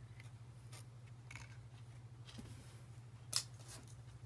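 A clear plastic phone-case box being handled, giving a few short rubbing and scraping sounds and one sharper click a little over three seconds in, over a steady low hum.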